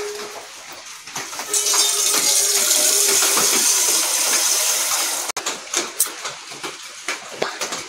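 Tap water running into a stainless steel saucepan: a steady hiss that starts about a second and a half in and cuts off suddenly a little past halfway, followed by a few light knocks.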